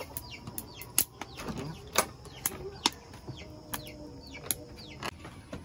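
Wood fire crackling with irregular sharp pops and clicks, while cassava roasts in it. Short falling bird chirps come through among the crackles.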